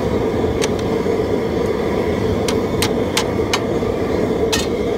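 Steady rushing roar of the seafood boiler's propane burner under the boil, with about six sharp clicks as the metal stirring paddle knocks against the boiler's basket and rim.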